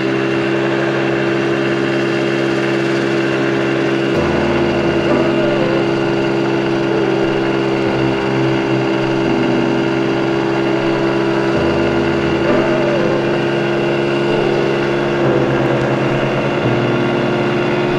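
Small 80cc engine of a 2022 Mondial Turismo scooter running steadily while under way, its low note shifting a few times as the throttle changes.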